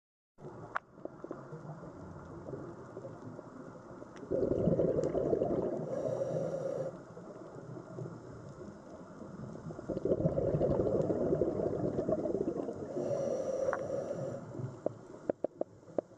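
Scuba diver's regulator breathing heard underwater: two long bubbly exhalations about six seconds apart, each ending with a short high hiss, over a low underwater rumble. A few sharp clicks near the end.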